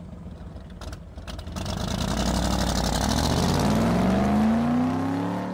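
A vehicle engine accelerating: its pitch rises steadily and it grows louder from about two seconds in.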